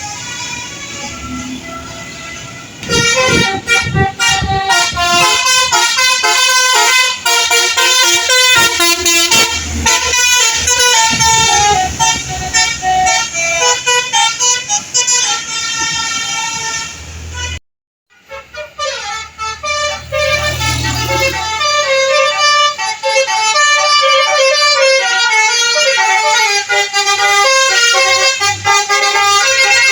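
Indonesian bus telolet horns: several multi-note melodic air horns sounding over one another in fast runs of notes. They start about three seconds in and break off briefly a little past halfway.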